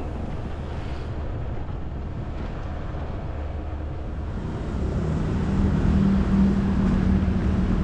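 A vehicle running: a steady low rumble, with a humming engine tone that grows louder about five seconds in.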